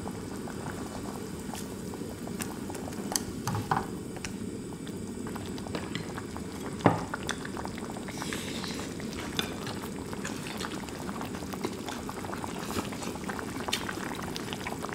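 Kimchi stew bubbling at a steady boil in a pot, with a scatter of small pops and one sharper knock about seven seconds in.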